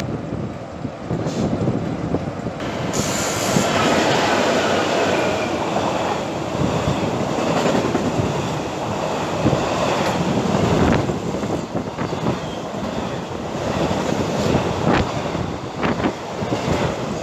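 Container freight train passing close by, wagon wheels rumbling on the rails and clattering over rail joints, getting louder about three seconds in.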